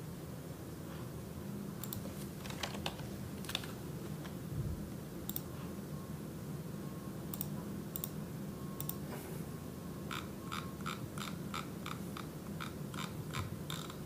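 Computer keyboard typing: a few scattered keystrokes, then a quick even run of about four keystrokes a second from about ten seconds in.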